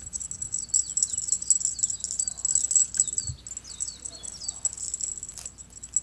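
Small birds chirping and twittering without a break, a fast stream of high chirps mixed with short falling notes. A brief low thump comes a little past three seconds in.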